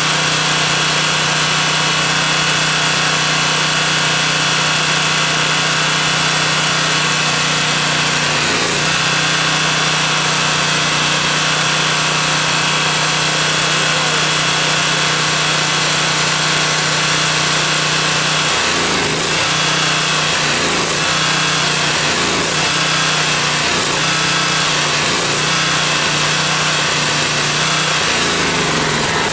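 Generac 4000EXL portable generator's 7.8 hp single-cylinder engine running steadily. Its pitch dips once about a third of the way in and then wavers again and again near the end: the engine changing over from the last gasoline in the carburetor to natural gas as the gas valve is slowly opened.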